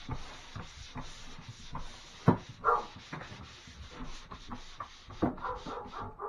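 Pole sander with 150-grit sandpaper rubbing back and forth over a dried joint-compound drywall patch. A dog barks in the house, most loudly a couple of seconds in.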